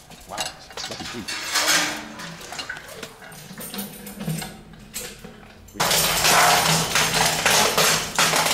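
The chain and metal bucket of a hand-cranked village well windlass clanking and rattling as the bucket is worked down the shaft and drawn up. About six seconds in the clatter turns suddenly much louder and denser.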